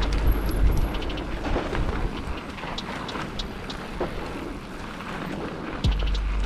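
Mountain bike riding down a dirt singletrack: a low rumble of wind on the mic and tyre noise on loose ground, with many sharp clicks and rattles from the bike over the bumps. The rumble eases in the middle and comes back strongly about six seconds in.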